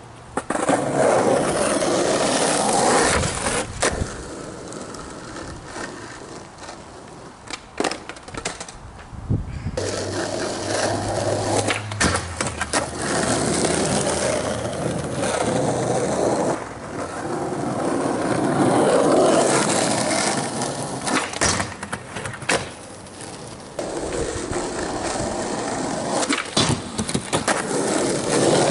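Skateboard wheels rolling loudly over rough asphalt in several long stretches, with sharp clacks of the board striking the ground here and there.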